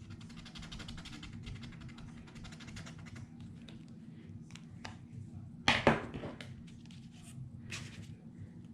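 Paper pieces being handled on a scrapbook page: a fine, rapid crackling for the first few seconds, then scattered soft ticks, with one short, louder sharp noise about six seconds in.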